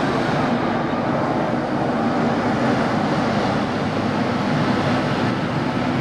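Mercedes-Benz Axor fire truck's diesel engine running steadily as the truck drives along a dirt road and comes closer.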